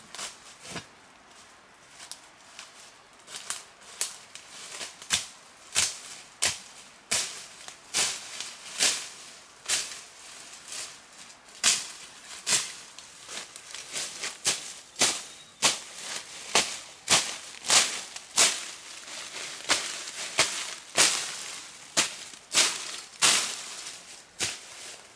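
A long run of sharp cracks or chopping strokes at about one or two a second, at an uneven pace, softer for the first three seconds and louder after that.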